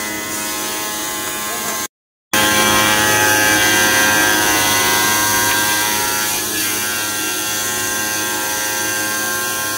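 An automatic CNC tile cutting machine running: a steady mechanical hum with several constant whining tones. About two seconds in it cuts out completely for half a second, then comes back louder.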